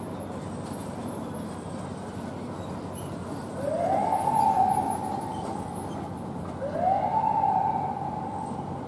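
Fire department SUV's electronic siren giving two rising whoops about three seconds apart, each sweeping up quickly, holding briefly, then fading, over the steady noise of city traffic.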